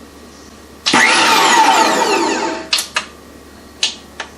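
STX Magnum 1800 W electric meat grinder's motor comes on suddenly about a second in, then winds down, its whine falling in pitch for nearly two seconds before it stops. A few sharp clicks follow.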